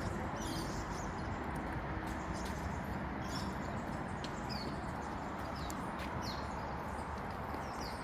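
Short, falling bird chirps every second or so over a steady hum of outdoor background noise.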